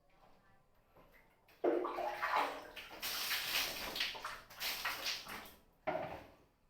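Water splashing and pouring in a bath: a sudden pour that runs about four seconds before fading, then a second, shorter splash near the end.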